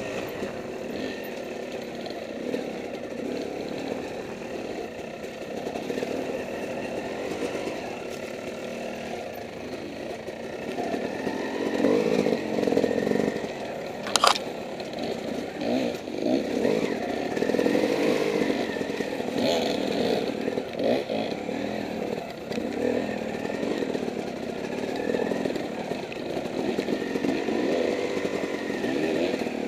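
Dirt bike engines revving up and down while riding rough woodland single track, heard through a headcam, getting louder about a third of the way in. A single sharp knock about halfway through.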